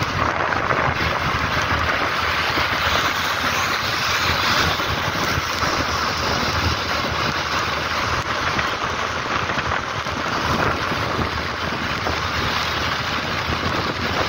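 Steady wind rushing over the microphone of a moving motorcycle, mixed with the hiss of tyres on a wet road.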